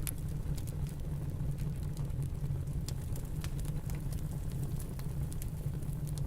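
Wood fire crackling, with many small irregular pops, over a steady low rumble of snowstorm wind.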